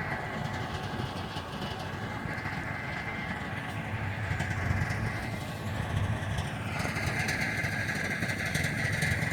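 Steady low rumble of vehicle engines idling and creeping in stop-and-go traffic.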